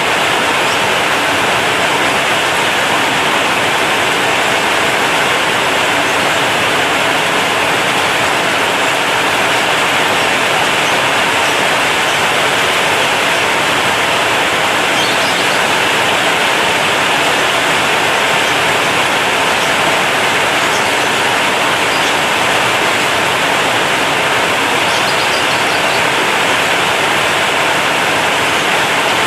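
Heavy rain drumming on a corrugated zinc roof, a dense, steady hiss.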